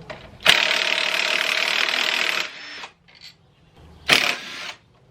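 Ratchet wrench being worked fast, its pawl clicking in a dense rattle for about two seconds, then a shorter burst near the end, as a bolt on a YZ85's triple clamp is run down.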